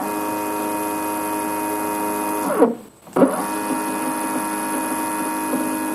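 Stepper motor on the Z-axis, driven at 1/16 microstepping, running at a steady speed with a whine of several pitched tones. Just under three seconds in it slows to a stop, then ramps back up and runs steadily again.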